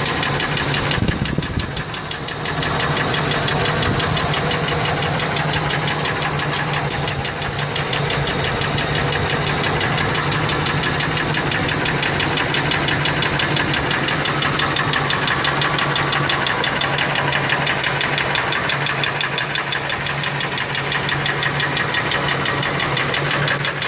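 Ford F-150's 4.6-litre two-valve V8 running with a steady, rapid knock, which the owner suspects is worn rod bearings rather than lash adjusters.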